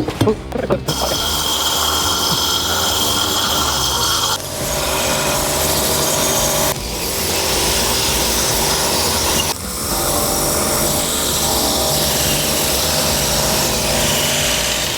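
Handheld power tool scouring rust off a heavily rusted Range Rover Classic front axle. It runs continuously, starting about a second in, with a shift in pitch a few seconds later and a couple of brief dips.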